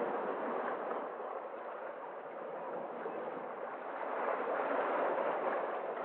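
Sea waves washing in and breaking over shoreline rocks: a steady rushing surf that ebbs a little about two seconds in and swells again after about four seconds.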